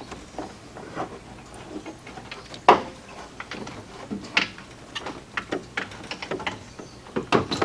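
Scattered clicks and knocks of hand tools working on a radiator mounting in a car's engine bay, with one sharper knock a little under three seconds in and a run of small ticks near the end.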